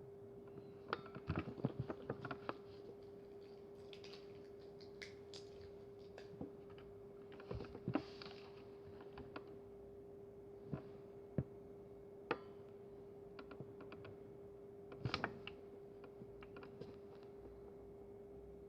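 Handmade slime being poked, pressed and squeezed by hand, giving scattered small clicks and pops in a few short clusters, over a steady faint hum.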